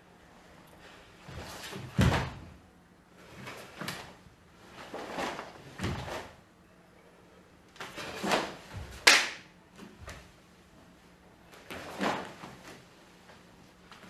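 A karateka's cotton gi snapping and bare feet stamping and sliding on a wooden stage floor through the moves of a kata: a string of separate swishes and thumps about every one to two seconds. The heaviest thump comes about two seconds in and the sharpest snap about nine seconds in.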